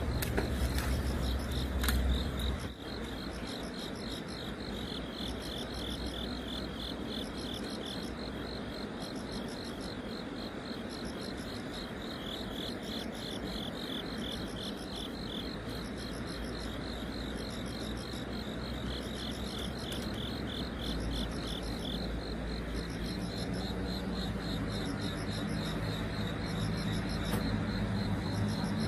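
Insects chirping in rapid, evenly pulsing trains that go on without a break, over a steady outdoor hiss. A low rumble fills the first couple of seconds and stops abruptly, and faint music comes in near the end.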